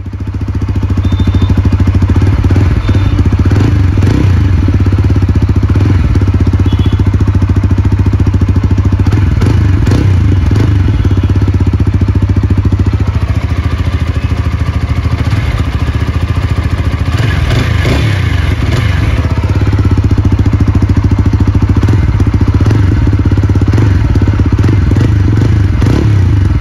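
TVS Apache RTR 160 4V's single-cylinder four-valve engine idling steadily, heard close to its new silencer. The note is even and a little loud.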